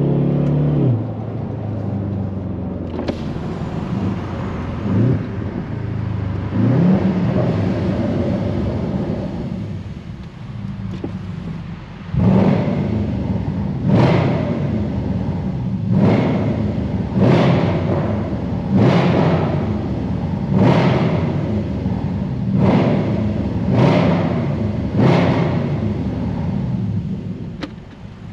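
Jaguar XFR's supercharged 5.0-litre V8. The revs drop in the first second, then it runs unevenly. From about twelve seconds in it gives a series of sharp, loud throttle bursts, about one every one and a half seconds.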